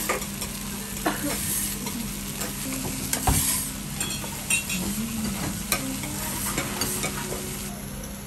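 Okonomiyaki sizzling on a hot teppan griddle, with a metal spatula scraping and clacking against the steel several times as it cuts through the pancake.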